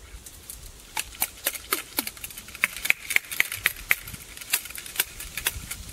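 Steel ramrod working in the bore of a muzzle-loading flintlock while it is loaded. From about a second in comes a quick, irregular run of sharp metallic clicks and taps, several of them ringing briefly.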